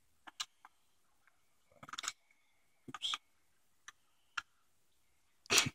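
Hard plastic clicking and knocking as a 3D-printed case is pushed and fitted closed around a breadboard, in short separate clicks with a louder knock near the end.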